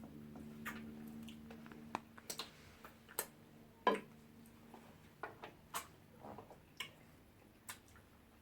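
Close-mic eating sounds: irregular wet mouth clicks and smacks from someone eating fufu with slimy ogbono soup. A low hum fades out over the first two seconds.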